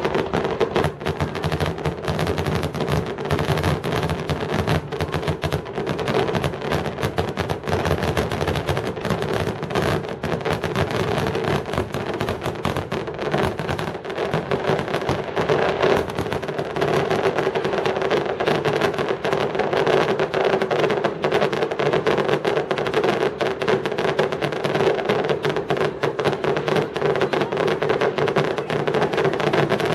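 Fireworks finale barrage: aerial shells bursting in rapid, continuous succession, the bangs overlapping with no pause.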